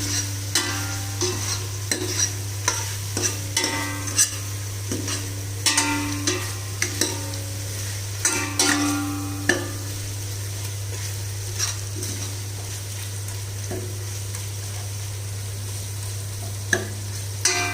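Spoon stirring cooked mutton and masala frying in a pan, with repeated ringing clinks and scrapes against the pan and a faint sizzle. The clinks come thick and fast for about ten seconds, then thin out to a few strikes, over a steady low hum.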